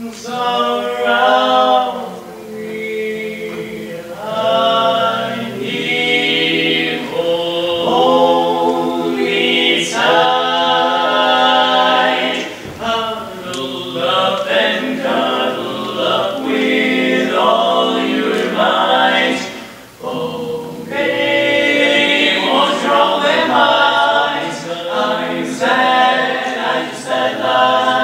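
Male vocal quartet singing a cappella in four-part harmony, phrase after phrase with short breaths between.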